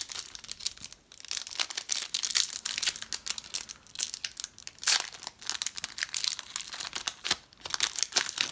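Plastic trading card pack wrappers crinkling and tearing in the hands, a pack being handled and ripped open, in irregular crackles with a short pause about a second in and another near the end.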